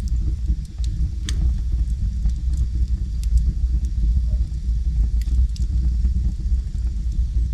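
Wood logs burning in a fireplace: a steady low roar of the flames with scattered sharp crackles and pops, the sharpest about a second in.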